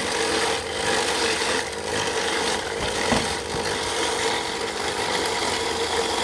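Electric ice shaver grinding a block of ice into shaved ice: a steady rasping noise with a motor hum underneath.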